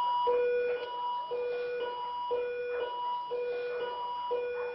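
Operating-theatre patient monitor sounding its flatline alarm: a repeating two-tone beep, a short higher tone then a longer lower one, about once a second, signalling that the anaesthetised dog's heart has stopped.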